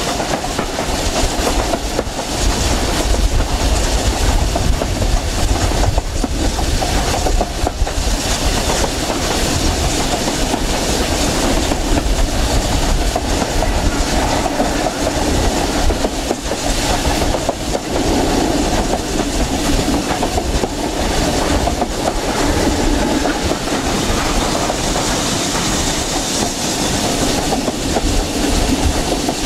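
Train hauled by BR Standard Class 7 steam locomotive 70013 running along the line, heard from the coach just behind the engine: a steady rumble with wheels clacking over rail joints.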